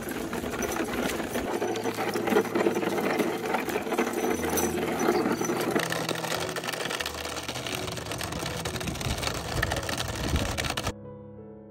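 Rapid, steady mechanical clatter made of many fine clicks, like a small machine running. It cuts off abruptly near the end, giving way to piano music.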